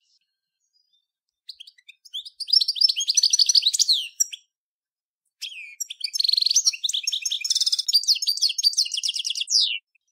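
European goldfinch of the large 'major' race singing: a short run of twittering notes from about a second and a half in, a pause, then a longer fast twittering phrase with a rattling buzz in its middle that stops just before the end.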